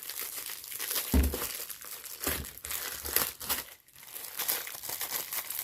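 Plastic packaging of a diamond painting kit crinkling and rustling as it is handled and pulled at, with a couple of soft thumps.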